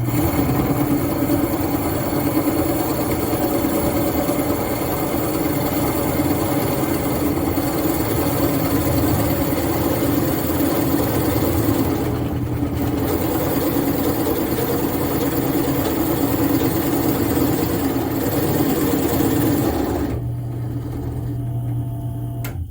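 Drill press boring a 1 3/8-inch hole into a western cedar blank, the bit cutting steadily under load. About twenty seconds in the cutting stops and the press's motor runs free for a moment before the sound cuts off suddenly.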